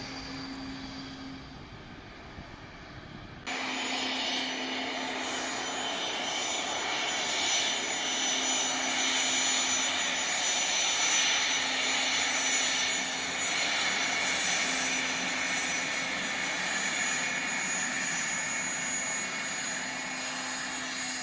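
Jet engine noise: for the first three and a half seconds, the fainter, more distant engines of an Embraer 195-E2 airliner on the runway. Then it jumps abruptly louder to a twin-turbofan business jet taxiing past close by, its engines giving a steady whine with high whistling tones.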